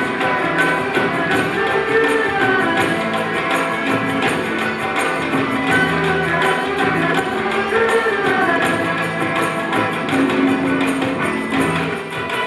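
Live ensemble music of traditional instruments: plucked pipa and guzheng play over a light, quick percussion rhythm.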